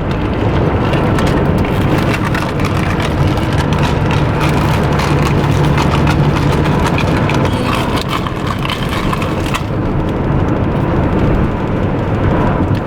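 Road noise inside a moving car: a steady loud rumble of tyres and engine, with a low hum that comes in about three seconds in and fades a few seconds later.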